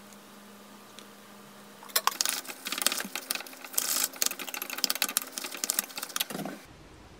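Wooden chopsticks rapidly tossing noodles in a ceramic bowl: a fast, uneven run of clicks and scrapes against the bowl that starts about two seconds in and stops abruptly shortly before the end.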